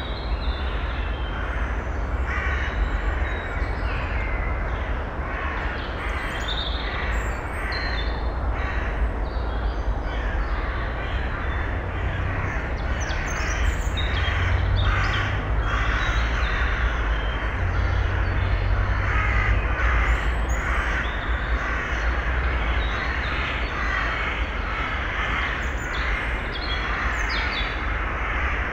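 Harsh, raspy bird calls repeated over and over, over a steady low rumble of constant background noise.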